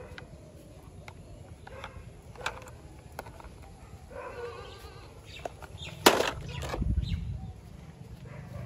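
Handling noise: a sharp knock about six seconds in, the loudest sound, followed by a low rumble of the camera being moved, over faint small clicks.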